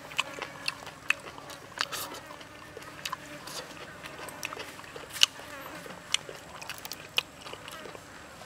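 Close-up eating of a fried chicken wing: irregular crunches, wet smacks and clicks of biting and chewing crispy skin and meat off the bone. One sharper crunch stands out about five seconds in.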